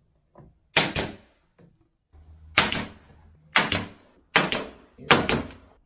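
Pneumatic brad nailer firing five times, each shot a sharp double crack, driving brads through pine tongue-and-groove ceiling boards into the rafters.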